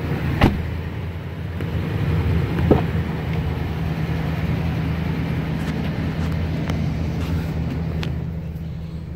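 The 2014 Nissan Titan's V8 engine idling with a steady low hum. Two short knocks come in the first three seconds.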